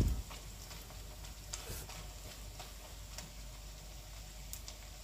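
Battered tempeh slices deep-frying in a wok of oil, with faint scattered crackles and pops from the oil. A low thump of the spatula against the wok comes right at the start.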